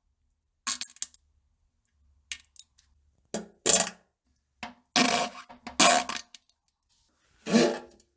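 A string of short fart and poop sound effects, about seven of them, each well under a second long, with dead silence between.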